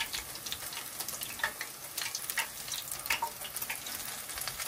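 Spoonfuls of corn fritter batter deep-frying in hot vegetable oil: steady sizzling and crackling, with a few short clicks of a metal spoon in the pot.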